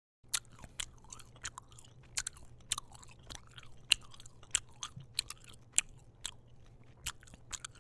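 Open-mouthed chewing of a stick of gum: irregular wet smacking clicks, two or three a second, over a faint steady low hum.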